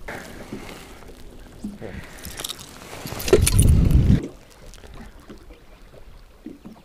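Water sloshing and splashing against the side of an aluminum fishing boat, with handling noise. About three seconds in comes a loud, deep rumbling burst lasting about a second.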